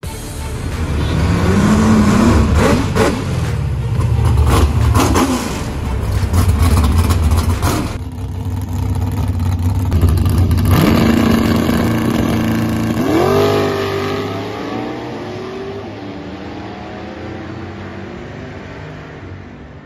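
V8 drag cars revving hard and launching down the strip. Near the middle the engine note climbs sharply through the revs, then fades as the car pulls away.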